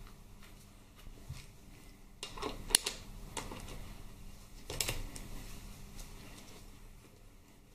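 Workshop tool and parts handling: scattered light clicks, with clattering knocks about two and a half seconds in and again near five seconds.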